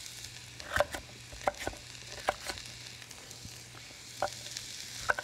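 A knife chopping red bell pepper on a wooden chopping board: about seven sharp knocks at irregular intervals. Under them, the steady sizzle of onions frying in oil in a hot pan.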